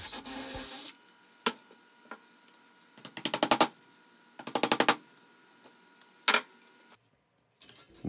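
A cordless drill runs for about a second. Then come a few single sharp knocks and two short flurries of rapid, rattling strikes as anchors are set into a wooden garage door.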